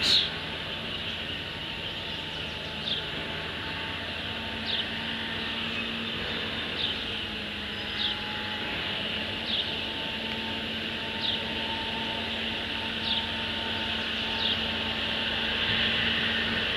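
A chick peeping: about eight short, single peeps that fall in pitch, roughly one every two seconds, over a steady hum.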